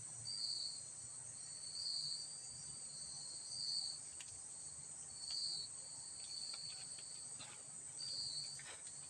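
Insects calling: a steady high-pitched drone with a shorter high chirp repeating about every second and a half, and a few faint ticks.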